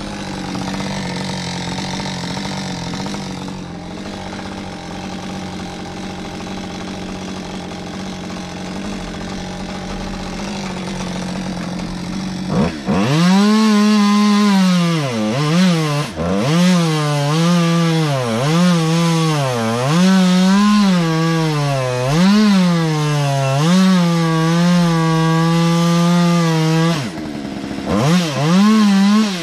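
Two-stroke chainsaw running at a steady speed for the first half, then cutting into the tree trunk from about halfway: louder, its engine speed dropping and picking back up over and over as the chain bites into the wood. It eases off a couple of seconds before the end, then gives one short rev.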